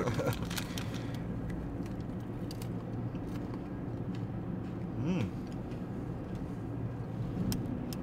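Steady drone of a car's engine and road noise heard inside the cabin, with a few light clicks and a brief hummed voice about five seconds in.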